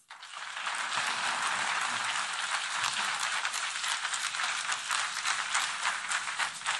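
Audience applauding in a large hall: many hands clapping, building over the first second, holding steady, and thinning out near the end.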